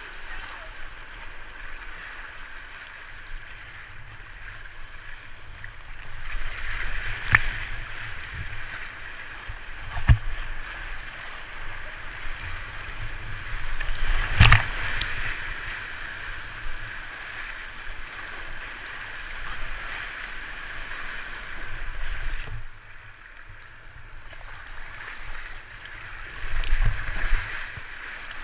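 Whitewater rapids rushing steadily around a kayak, heard from a camera mounted on the boat, with several sharp splashes as waves break over the bow, the loudest about halfway through.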